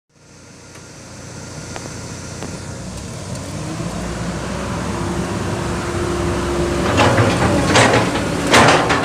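Excavator diesel engine running with a steady low hum that grows louder, a held tone in the middle, and several short loud noisy bursts in the last two seconds.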